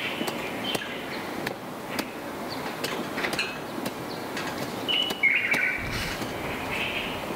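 A long clothes-drying pole beating a quilt hung on a drying rack, knocking the dust out with a sharp strike about every half second. Over it a bird gives short falling chirps about five seconds in, and again near the end.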